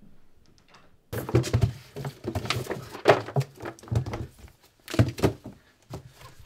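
Hurried rummaging through a cabinet: a quick, irregular run of knocks, thuds and rustles that starts about a second in.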